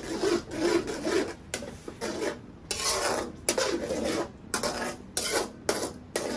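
Slotted metal spatula scraping back and forth across a honeycomb-textured stainless steel wok while stirring thick masala gravy: repeated rasping strokes, about two a second.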